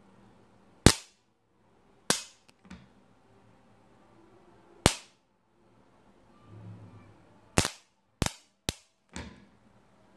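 A series of about eight sharp electrical snaps at irregular intervals, the loudest about a second in and near five seconds, with a quick cluster of four in the last three seconds: sparking as the stripped ends of two copper wires are touched together.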